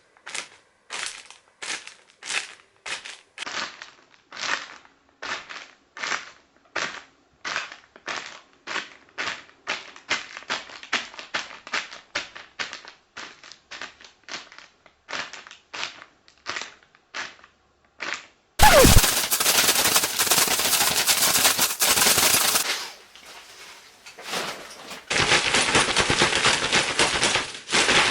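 A sequence of homemade foley sound effects: sharp, evenly spaced knocks about two a second, then a loud, dense crackling noise that opens with a brief falling whistle, fades out and comes back near the end.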